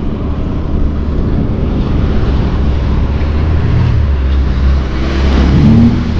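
Outboard motors running at planing speed on two inflatable boats, with wind and water rushing past the hull. It grows louder near the end as the second boat closes in.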